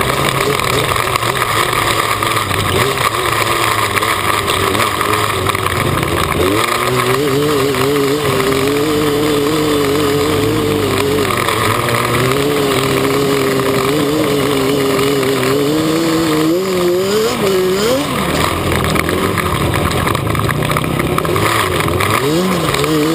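Modified Yamaha Banshee's 350cc twin-cylinder two-stroke engine running hard under way, heard from on board the quad. Its pitch wavers but holds fairly level for a stretch in the middle, then rises and falls quickly with the throttle toward the end.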